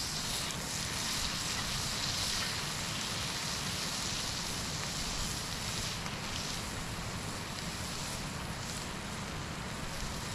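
Steady rushing outdoor ambience of flowing river water and wind, with no distinct events.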